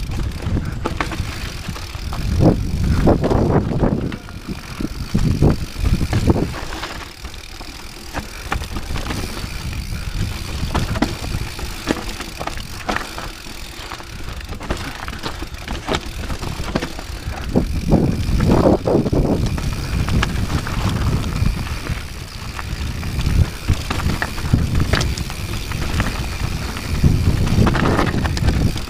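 Rocky Mountain 790 MSL mountain bike descending a rocky dirt trail: tyres rumbling and crunching over loose stones and dirt, with several louder, rougher stretches over the rocks.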